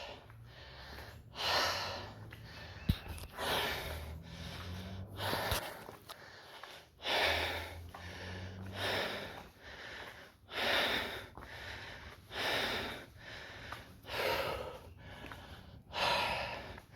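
Hard, heavy breathing from cardio exertion: a loud breath about every one and a half to two seconds. There is a single sharp click about three seconds in.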